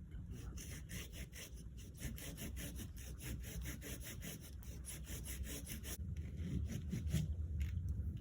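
Silky hand saw cutting through goat willow wood in quick, even strokes, about four a second. The sawing pauses about six seconds in, then a few more strokes follow.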